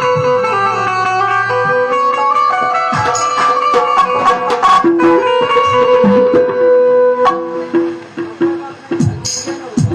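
Indian traditional music played loud over a sound system during a sound check: a melody over a steady held drone note, with hand-drum strokes. About three-quarters of the way in it thins out to a sparser, repeated note and drops in level.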